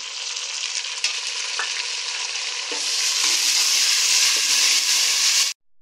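Sliced tomatoes sizzling in hot ghee with fried onions in a metal pot, stirred with a steel ladle that gives a few light clicks against the pot. The sizzle swells about three seconds in, then cuts off abruptly near the end.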